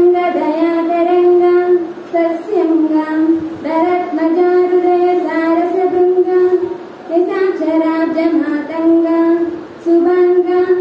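A female voice singing solo in long, held, gently wavering notes, with short breaks between phrases about two, seven and ten seconds in.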